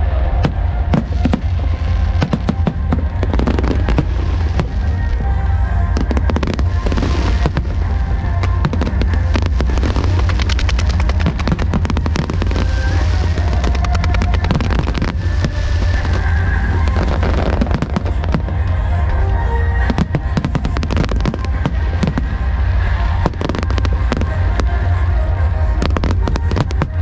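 A fireworks display with dense, rapid bangs and crackles and brief hissing spells, over music playing throughout.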